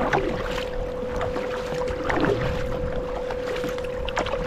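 Water splashing and lapping against a sit-on-top kayak and its paddle as it moves over calm sea, in irregular small splashes, over a steady hum.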